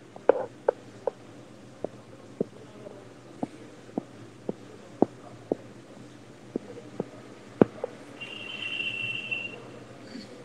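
Sharp, irregular clicks, roughly one every half second, picked up over an online call, with a short high warbling tone of a little over a second about eight seconds in.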